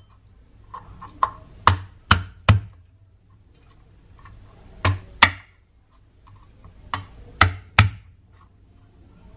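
Kitchen knife striking a plastic cutting board as garlic cloves are smashed and chopped: about ten sharp knocks in three quick bunches, with short pauses between.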